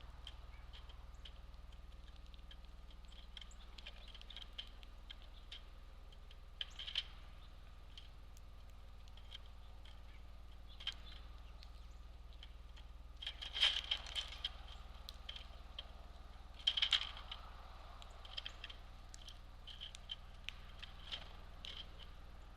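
Small birds at a feeder giving short, sharp chip notes and clicks, scattered irregularly, with two louder clusters about fourteen and seventeen seconds in.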